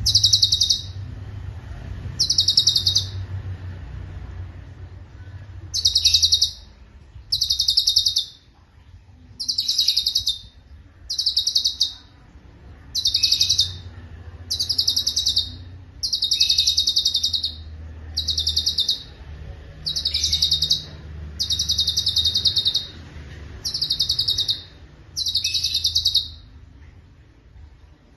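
Cucak cungkok singing: it repeats fast, rolling, high trills about a second long, one every second or two, with short gaps between them. A faint low hum lies underneath.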